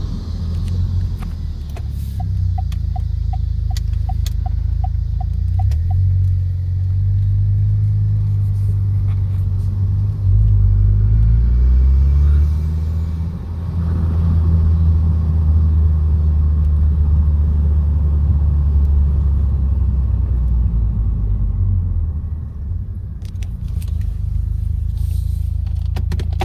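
2012 Buick Regal GS's turbocharged 2.0-litre four-cylinder engine and Borla Pro XS exhaust droning while driving, the drone shifting in pitch and loudness a few times. It runs without the weird noises it had been making. A short run of quick beeps comes a couple of seconds in.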